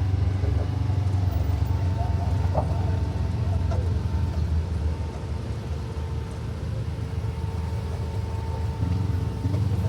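UTV engine running under load with a steady low drone, easing off about halfway through and picking up again near the end. A few short knocks and rattles come early on, and a faint steady whine runs underneath.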